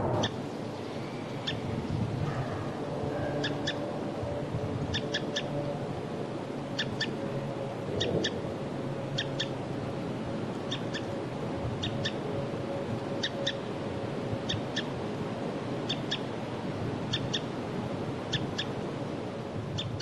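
Winter wren giving sharp chip calls, mostly as quick double notes, repeated about every second and a half over a steady low background noise.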